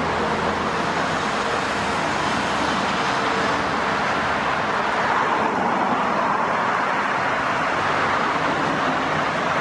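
Steady road traffic, cars and other vehicles passing. A low engine hum fades out over the first two seconds, and one vehicle passes louder around the middle.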